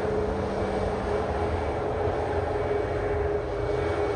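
Boeing 737 MAX 8's CFM LEAP-1B turbofan engines running at low power as the airliner taxis: a steady rumble with a held hum over it.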